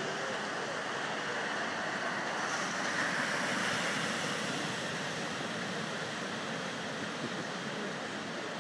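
Floodwater rushing steadily, swelling slightly about three seconds in.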